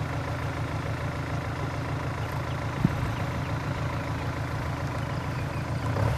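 Boat engine running steadily at a constant speed, a low even drone, with one brief tick near the middle.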